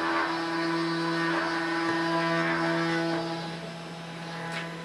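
Small CNC engraver's spindle running with a steady hum and whine while the bit clears wood. One of its higher tones drops out about three seconds in.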